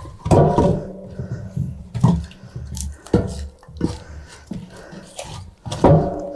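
Firewood being loaded into the firebox of a metal wood-burning sauna stove: a string of irregular knocks and clunks, wood on wood and wood on metal, the stove ringing briefly after the louder ones, which come at the start and near the end.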